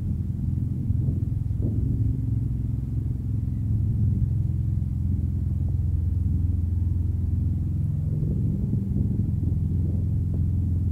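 A steady low rumble from an engine running at an even pitch.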